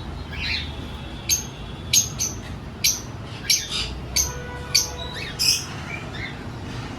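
Cockatiels giving short, sharp chirping calls, about nine in a row at uneven intervals.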